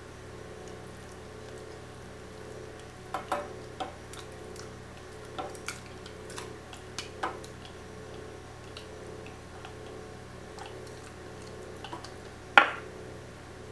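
Clear plastic food-processor bowl tapping and clicking against the rim of a steel saucepan as its contents are tipped into the liquid, with one sharp knock near the end. A steady low hum runs underneath.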